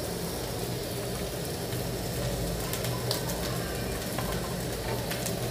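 Chopped vegetables sizzling in hot oil in a kadhai as shredded cabbage is dropped in, with a steady low hum underneath and a few light clicks from about three seconds in.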